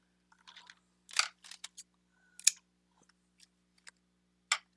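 Several short, crisp snips and rustles of ribbon trim being handled and cut with scissors. The sharpest comes about two and a half seconds in, with another near the end.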